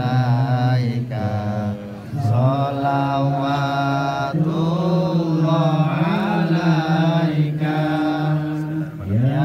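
A group of men's voices chanting Islamic devotional verses in unison, with long held notes that slide up and down in pitch and a short breath pause about two seconds in.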